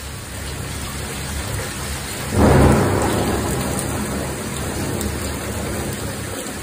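Torrential wind-driven typhoon rain pouring down in a steady hiss. About two and a half seconds in, a loud low rumble swells up and then slowly dies away.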